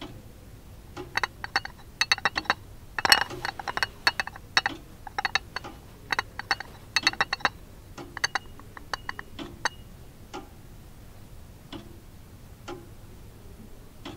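Mechanical clock ticking: sparse single ticks, with a dense flurry of fast, bright metallic ticks for several seconds in the middle.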